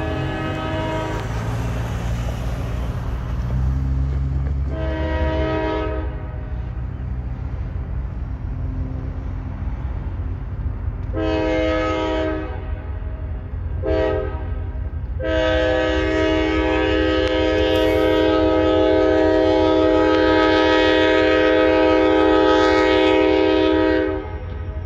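CSX diesel freight locomotive sounding its air horn for a road crossing over the rumble of its engines. Several blasts of a few tones each, then a short blast and a long one held about nine seconds as the locomotive reaches the crossing; that last one is the loudest.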